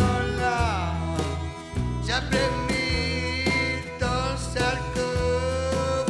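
A recorded Louisiana French song: a singer holding long, wavering notes in French over guitar, bass and a steady beat.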